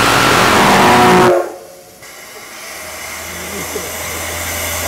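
Steam whistle of the JNR Class C56 steam locomotive C56 160 blowing, loud and steady, then cutting off suddenly about a second in: the departure signal. A quiet low hum and hiss then slowly builds.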